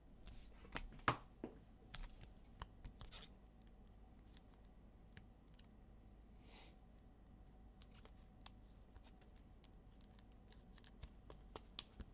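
Faint rustles and clicks of a trading card and its soft plastic sleeve being handled, bunched in the first three seconds or so, then near-quiet room with a few scattered faint ticks.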